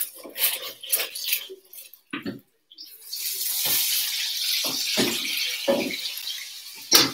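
Kitchenware knocking and clattering, then a steady rushing hiss for about four seconds, ending in one sharp clatter.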